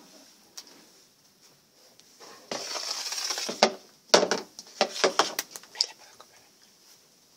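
A short rustle, then a quick run of sharp clicks and knocks lasting under two seconds.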